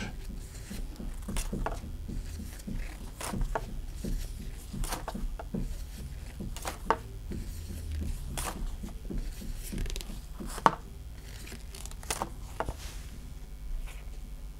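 Pokémon trading cards handled in gloved hands: scattered light clicks and soft rustles as cards are slid and held up one after another, over a low steady hum.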